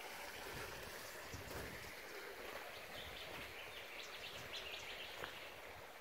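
Faint, steady trickle of a shallow creek running over rocks, with a few brief high chirps through the middle.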